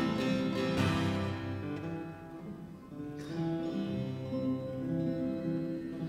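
Solo acoustic guitar playing: strummed chords at the start and again about three seconds in, with quieter ringing notes in between.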